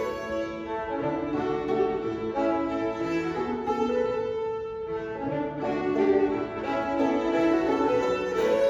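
Two fiddles and a five-string banjo playing an old-time fiddle tune together, the fiddles bowing a running melody line.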